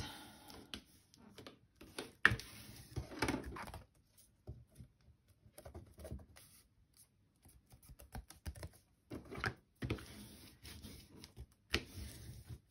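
Paper being handled, and a bone folder rubbed and tapped over freshly glued patterned paper on a book cover: scattered rustles, scrapes and sharp taps, the sharpest about two seconds in.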